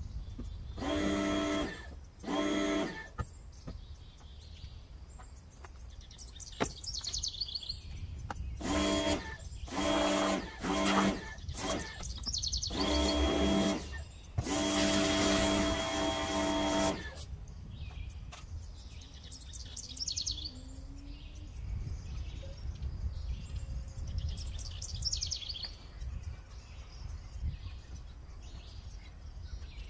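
Pressure washer running in several bursts of a few seconds each, a steady motor hum under the hiss of the water spray, as the car is rinsed. In the second half, birds chirp.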